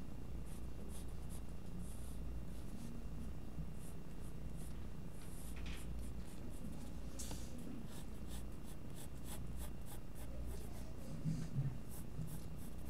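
Pencil lead of a Koh-i-Noor Tecnigraph scratching across paper in short sketching strokes, the strokes coming quicker in the second half. A steady low hum lies underneath.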